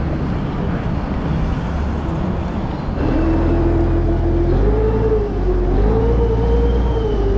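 A motor vehicle running with a steady deep rumble; about three seconds in a whine joins, wavering up and down in pitch.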